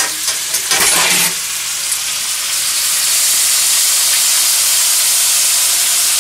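Frozen diced onions tipped into a stainless skillet of hot oil. A burst of clicks as they land about a second in, then steady sizzling that grows louder a couple of seconds later.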